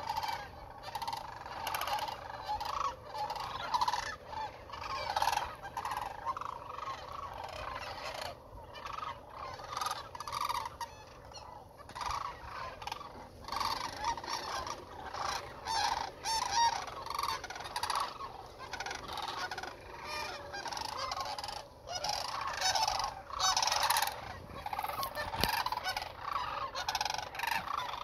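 A large flock of sandhill cranes calling, many birds at once in a dense, continuous chorus of overlapping calls.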